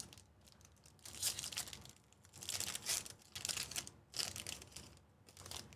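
Foil wrapper of a Topps Chrome Jumbo baseball card pack crinkling and tearing open in a handful of short bursts.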